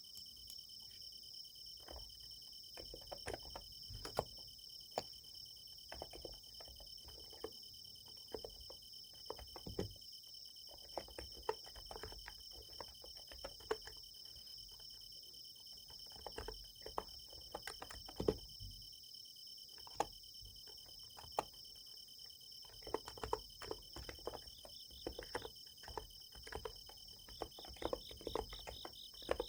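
Typing on a Niz Plum x108 electrostatic capacitive keyboard: soft keystrokes coming irregularly in runs, over the steady, continuous chirring of insects. A second, pulsing insect call joins near the end.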